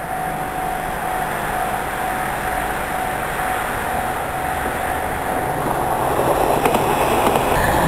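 Train running along a curved track toward the listener with continuous rail rumble and a thin steady tone through the first few seconds. The noise grows louder over the last two seconds as the train draws near, with a few faint clicks.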